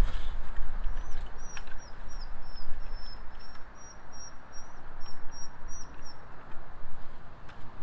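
A bird giving a rapid run of short, high chirps for about five seconds, over a steady low hum and hiss with a few faint clicks.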